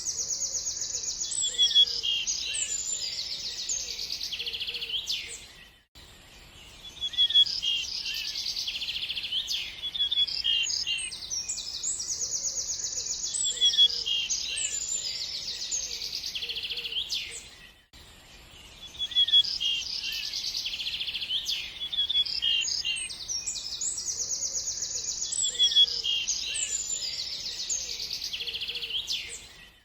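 Small birds chirping and singing fast, high-pitched trills. It is a looped recording: the same stretch of song comes round about every twelve seconds, with a short dip in level between repeats.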